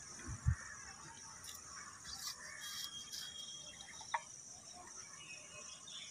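Faint outdoor background with a few thin bird chirps, broken by two soft thumps near the start and a sharp click about four seconds in as PVC pipe fittings are handled.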